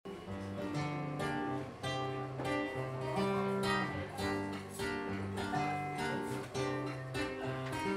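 Nylon-string cutaway classical guitar playing an instrumental introduction: chords with a moving bass line under them, before any singing starts.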